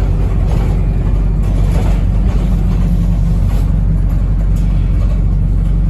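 Wrightbus New Routemaster bus heard from inside the cabin while under way: a steady low drone from the drivetrain with road noise and light rattles.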